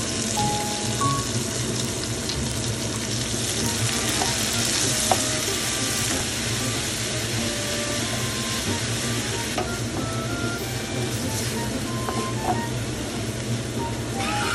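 Pork belly, kimchi, onion and green onion in a sweet-spicy chili sauce sizzling steadily in a hot pan as they are stir-fried with a spatula. Faint background music plays along.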